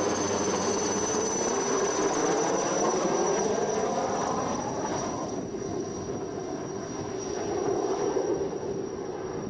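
Helicopter flying overhead and moving away, a steady rotor and engine sound with a high whine that weakens after about five seconds as it draws off.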